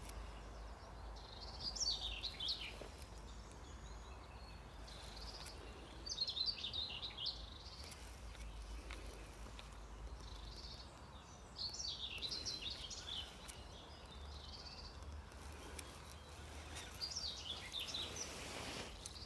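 A songbird singing short, rapid chirping phrases, four times, roughly every five seconds, over a faint low background rumble.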